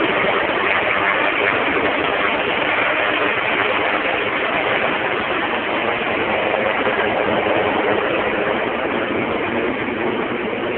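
AgustaWestland AW139 air ambulance helicopter climbing away overhead on take-off: its rotor and twin turboshaft engines run loud and steady, easing off slightly near the end.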